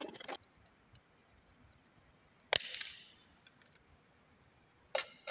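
Handling noise from plastic electrical fittings: an air-conditioner switch and its surface box knocking on a tabletop. There is one sharp clack with a short rustle after it about two and a half seconds in, and another clack near the end.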